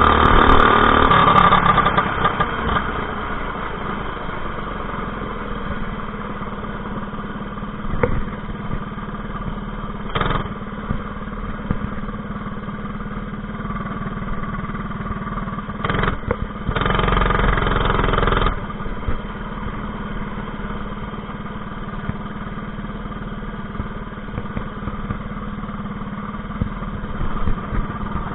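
Predator 212 single-cylinder engine on a mini bike running continuously, its governor spring zip-tied to bypass the governor. It is louder for the first two seconds, then settles to a steadier, lower level with a few short louder spells, the longest about 16 to 18 seconds in.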